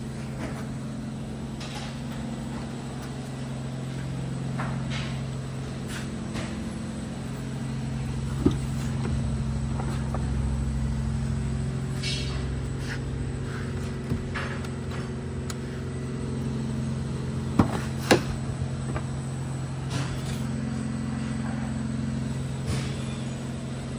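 Steady low machine hum of shop equipment, with a few sharp knocks: one about eight seconds in and two close together a little past halfway.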